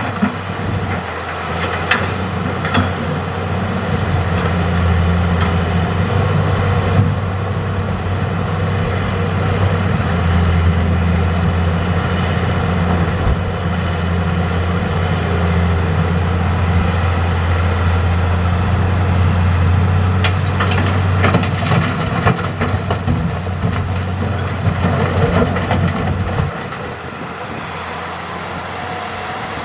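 Hitachi excavator's diesel engine running steadily under load, a deep drone, with a few clanks and clatters from the work. The engine drops to a lower level near the end.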